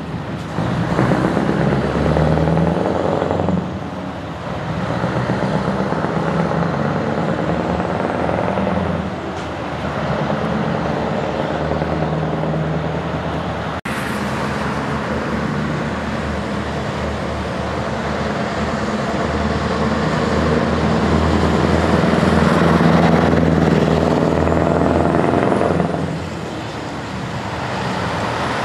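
Scania V8 tractor unit's diesel engine running under load as the truck drives away, its note easing off briefly a few times. Road traffic passes as well.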